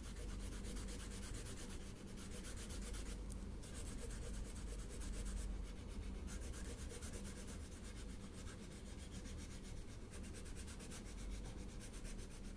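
Wax crayon rubbing on paper in steady, continuous strokes as a circle is coloured in orange.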